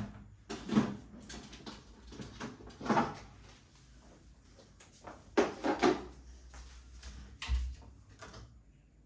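Things being moved around in a fridge: a few separate knocks and clatters of packages and containers, and a dull low thump near the end.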